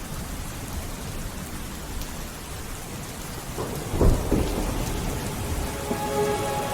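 Steady rainfall with a low thunderclap about four seconds in. A few held musical tones come in near the end.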